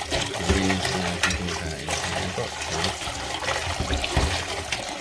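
Tap water running into a stainless-steel pot, splashing, while a hand rubs and swishes dried taro leaves in the water to wash them.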